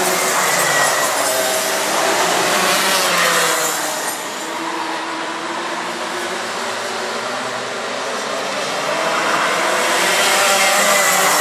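Racing kart engines revving as karts pass, several pitches rising and falling over one another; the sound eases off about four seconds in and builds again near the end as karts come back by.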